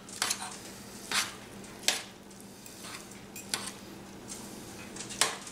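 Two metal forks shredding pressure-cooked chuck roast in a stainless steel pan, the tines clinking and scraping against the pan in about five sharp clicks at irregular intervals.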